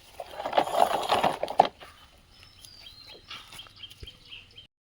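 Small rocks clattering together as a toy excavator loads them: a dense run of knocks for about a second and a half, then a few scattered faint clicks.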